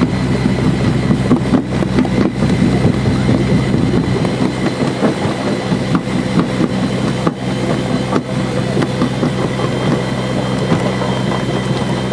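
A vehicle's engine running at a steady speed, with dense, irregular rattling over it.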